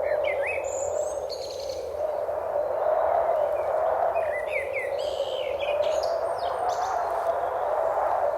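Birds chirping in short quick calls, a few near the start and another cluster about five seconds in, over a steady rush of flowing water.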